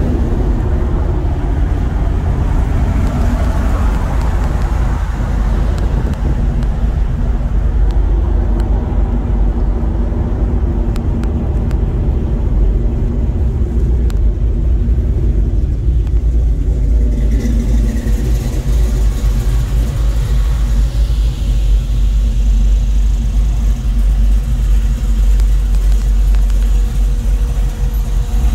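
Steady low engine, road and wind rumble of a classic car driving in traffic, heard from inside the car. It grows brighter and hissier a little over halfway through.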